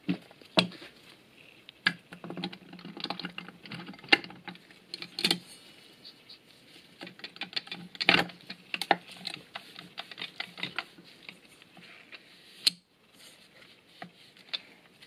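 Irregular light metal clicks, clinks and taps from a JATCO JR710E automatic transmission's clutch drum and planetary assembly being handled and stacked together by gloved hands, with a few sharper knocks as parts seat.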